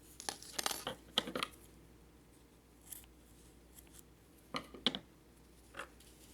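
Scissors snipping yarn: a quick flurry of sharp snips in the first second and a half, another pair about five seconds in, and a few fainter clicks between.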